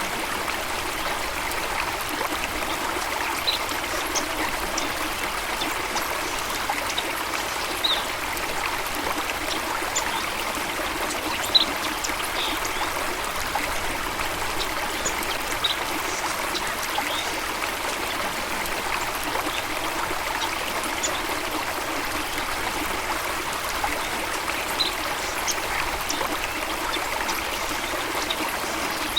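Running water of a stream or small waterfall, a steady even rush, with scattered brief high-pitched blips over it.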